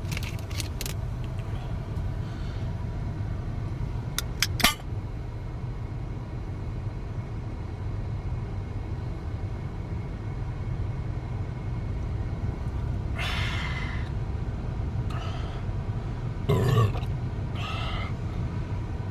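Steady low rumble of a car, heard inside the cabin, with a sharp click about four and a half seconds in and a few short rough noises near the end.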